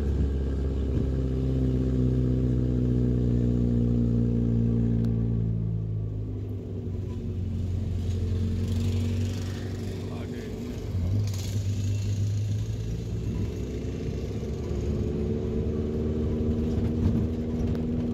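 A vehicle engine running steadily. Its note drops and eases off about six seconds in, then builds again near the end.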